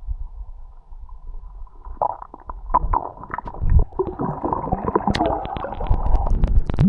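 Water gurgling and bubbling against an action camera's microphone with a low rumble and scattered clicks. It grows busier and louder about two seconds in.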